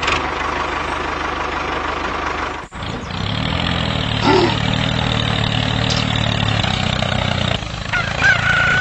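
Small tractor engine running steadily. The sound breaks off for a moment just under three seconds in, and a high whistle-like tone comes in near the end.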